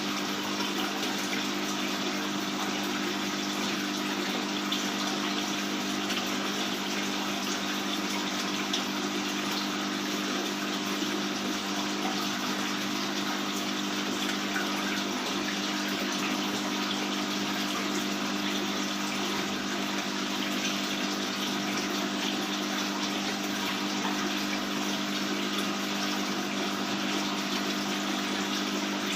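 Aquarium water pump and filter running steadily, with water splashing and a constant low hum.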